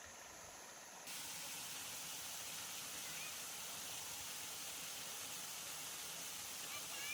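Waterfall water rushing as a steady hiss that gets louder about a second in, with a couple of faint, short high chirps over it.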